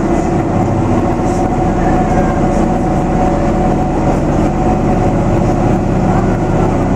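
Hisatsu Orange Railway HSOR-100 diesel railcar's engine running under power as the train pulls away from a station, heard from inside the car as a steady drone.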